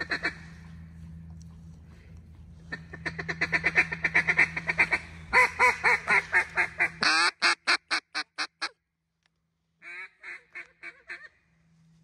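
Mallard-style duck calling on a hunter's duck call: a fast run of short quacks, then a louder series of longer quacks that fade away note by note, and after a pause a shorter series. It is calling to work ducks flying overhead.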